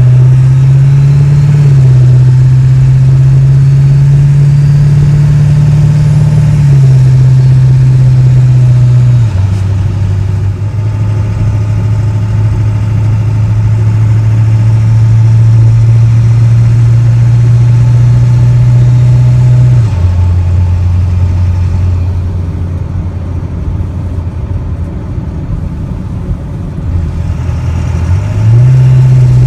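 7.3 L Power Stroke V8 turbo diesel of a 2000 Ford Excursion, heard from inside the cab with the windows up, through a 4-inch Diamond Eye exhaust with muffler while driving. A steady low drone that drops in pitch in steps a few times. It is quieter for a few seconds near the end, then picks up again.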